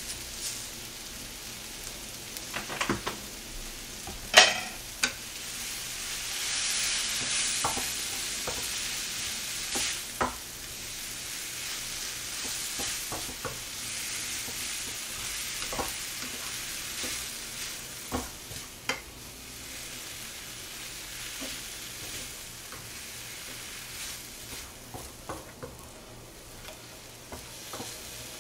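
Sliced radish and onion sizzling in a frying pan as they are stirred and tossed with a wooden spatula, with scattered sharp knocks of the spatula against the pan, the loudest a little over four seconds in. The sizzle swells for a few seconds around the middle.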